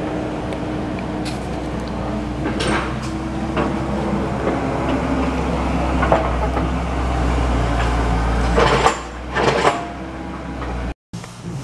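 A steady low mechanical hum with a few scattered knocks and clatters. The loudest knocks come about nine seconds in, and the hum stops soon after.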